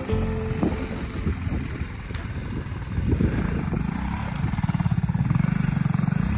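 Motorcycle engine running, its low exhaust beat growing louder and steadier over the last couple of seconds.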